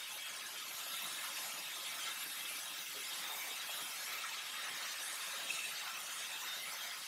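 Steady hiss of compressed air escaping from the pressurized aluminum fuel tank around a thread tap being turned by hand into a hole in the tank top, with one brief click about five and a half seconds in.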